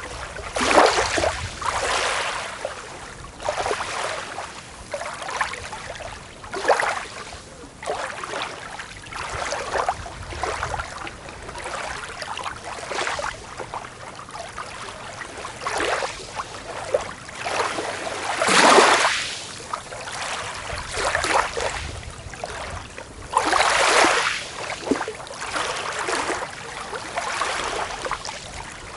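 Small waves breaking and washing onto a beach in an irregular series of swishes every second or two, one larger wash landing about two-thirds of the way through.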